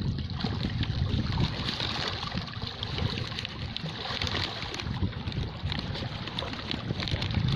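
Sea waves washing in, a steady rush of surf over a low rumble.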